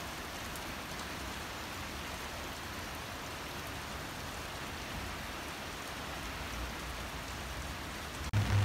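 Heavy rain falling, an even steady hiss. Shortly before the end it cuts out for an instant and a louder low hum takes over.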